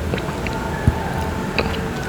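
Close-miked mouth sounds of someone eating soft Monthong durian flesh: wet chewing with scattered small clicks and one low thump about halfway through, over a steady low hum.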